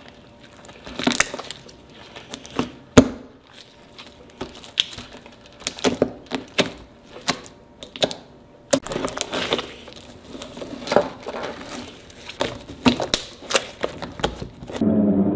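Clear glue slime being kneaded, stretched and pressed by hand, giving off an irregular run of sharp, sticky pops and clicks.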